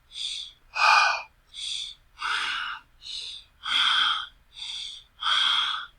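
A person panting hard, out of breath: noisy breaths in and out in an even rhythm, about one every three quarters of a second, with the out-breaths the stronger.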